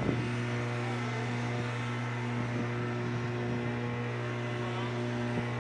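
Steady low hum of shipboard machinery, holding a constant pitch.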